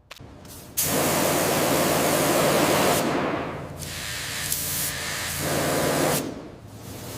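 Loud hissing spray in long bursts over a low steady hum. It starts suddenly about a second in, eases off midway, swells again and falls away about six seconds in.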